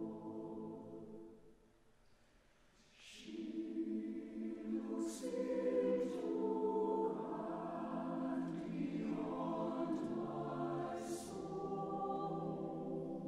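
Mixed-voice chamber choir singing: a held chord fades away, then after a short pause the voices come back in about three seconds in and sustain full harmony, with a few sharp 's' consonants standing out.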